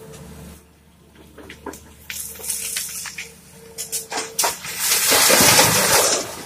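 Gravel dumped from an excavator bucket into a steel dump-truck bed: scattered knocks of single stones, then a loud rattling rush of stones about five seconds in, over the steady hum of the Komatsu PC200-6 excavator's diesel engine.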